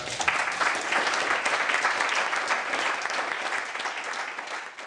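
A seated audience applauding at the close of a talk: many hands clapping together, tapering off near the end.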